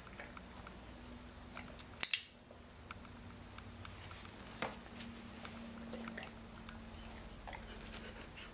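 A dog-training clicker clicked once about two seconds in, a sharp double snap as it is pressed and released, the marker that tells the dog it has done the right thing. A softer knock follows a couple of seconds later, with faint light ticks in between.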